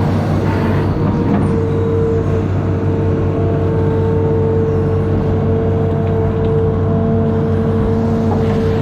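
Amphibious excavator's diesel engine running steadily under work, a constant low drone with a steady whine laid over it.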